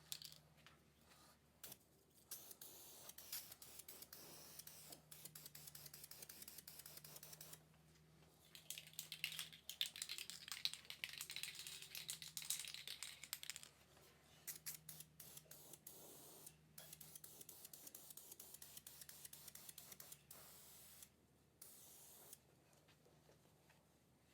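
Aerosol can of filler primer sprayed in short, rapid hissing bursts, faint, with a denser stretch of spraying in the middle.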